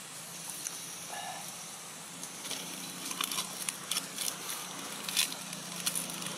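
Dry leaf litter crackling and rustling in short, irregular clicks as the monkeys shift on the ground, thickest in the second half, over a low steady background hum.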